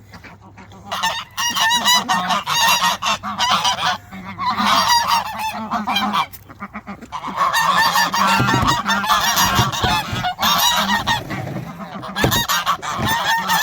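Farm birds honking loudly, many overlapping calls starting about a second in and carrying on with only brief breaks.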